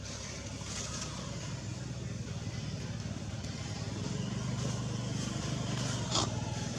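Steady low hum of a motor engine running, growing a little louder partway through, with one sharp click near the end.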